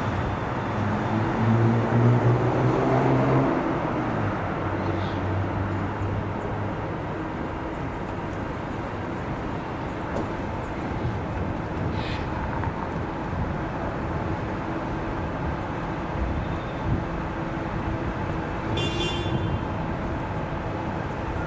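Diesel freight locomotive working: its engine note climbs in pitch and grows louder over the first few seconds, then settles into a steady rumble.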